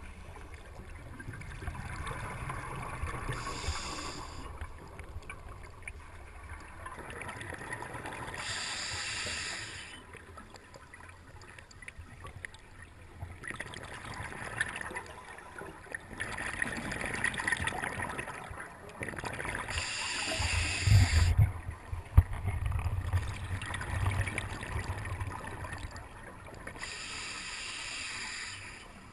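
Scuba diver's breathing heard underwater through a camera housing: exhaled bubbles from the regulator come in about five bursts several seconds apart, with low gurgling between them. The loudest burst, about two-thirds through, carries a deep rumble.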